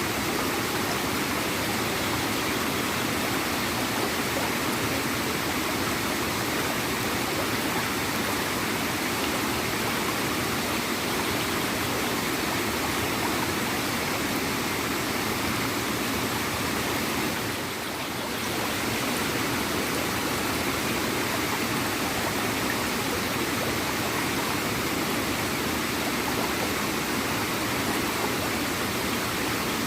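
Small waterfall and stream, water flowing and gurgling steadily, with a brief dip in level a little past the middle.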